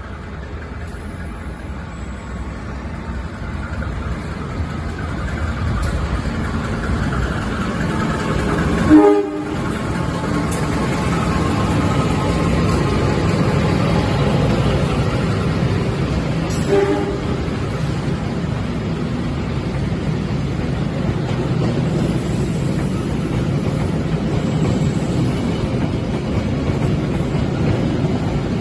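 Diesel-electric locomotive-hauled passenger train approaching and running through a station: the rumble builds as it nears, the horn gives a short loud blast about nine seconds in and a brief toot about seventeen seconds in, and then comes the steady rumble of the coaches rolling past.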